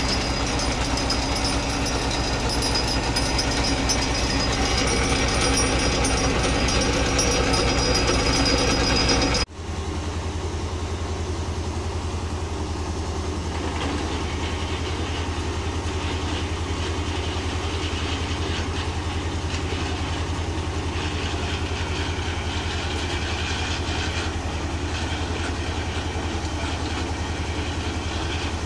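Tractor engine running steadily at an even idle. About nine and a half seconds in the sound cuts off abruptly and resumes as the same steady idle, slightly softer.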